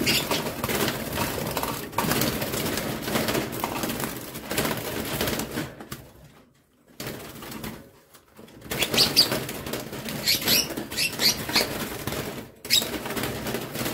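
Lovebirds flapping their wings inside a wire cage as a hand reaches in to catch a young lovebird, with two brief lulls. From about nine seconds in there is a run of sharp, high, short calls from the birds.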